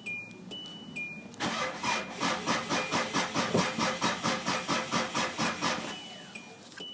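Hyundai Starex's starter cranking the engine in an even rhythm of about four turns a second for roughly four and a half seconds, then stopping. It is a hard start, which the owner puts down to a bad battery whose voltage drops to 8 V while cranking.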